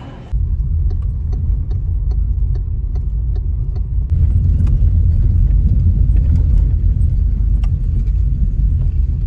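A car driving on the road, heard as a steady low rumble of road and wind noise, louder from about four seconds in, with scattered light clicks.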